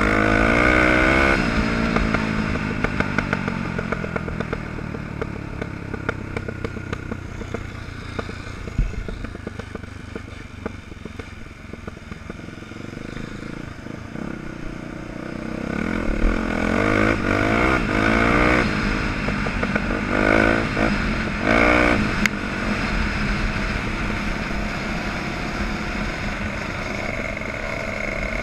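Off-road motorcycle engine being ridden hard, its revs falling away at first, easing off and quieter through the middle, then rising again in several surges with gear changes, with rattling from the rough track.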